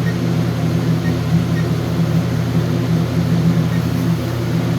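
Steady low mechanical hum with a buzzy, evenly pitched drone that does not change.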